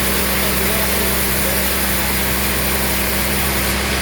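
A machine's motor running steadily with a constant hum.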